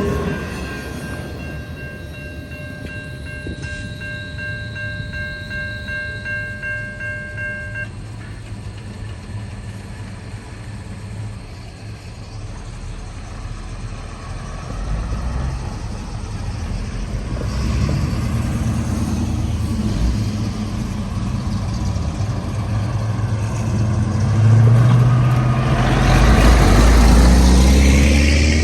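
Freight train on the move, its rail noise and locomotive engine rumble building up to the loudest point near the end. A steady high, multi-toned sound holds for the first several seconds and cuts off suddenly.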